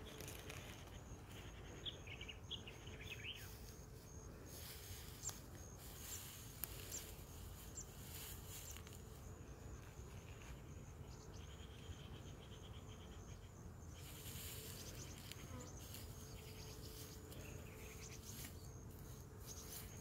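Faint outdoor ambience: insects chirping steadily over a low wind rumble, with a few short bird chirps about two to three seconds in.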